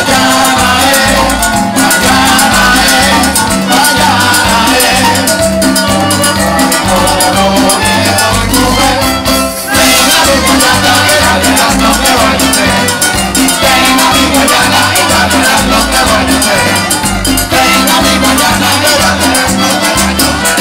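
Live salsa band playing an instrumental passage: a steady bass line under percussion, with trombones and violin on stage.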